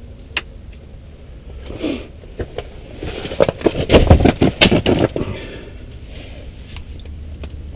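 A crappie being landed through an ice hole: a quick flurry of knocks and scrapes about three seconds in, lasting a couple of seconds, over a steady low hum.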